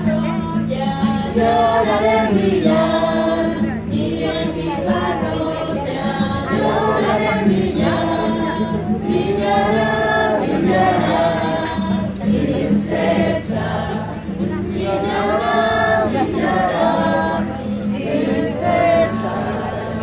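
A group of voices singing a religious hymn, with steady held low notes beneath the melody.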